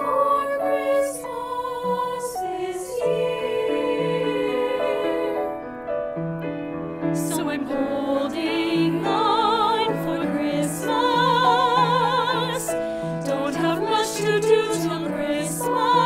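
A woman singing a Christmas song with strong vibrato, accompanied by piano. The voice breaks off for about a second some six seconds in, then comes back.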